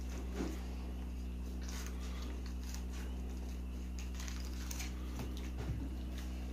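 A steady low electrical hum, with faint scattered scrapes and clicks of a fillet knife cutting along a fish on a wooden table.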